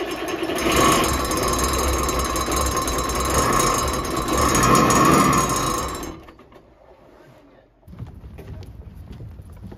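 Volvo Penta marine diesel engine heard up close in the engine bay, a loud, steady mechanical clatter that fades out about six seconds in.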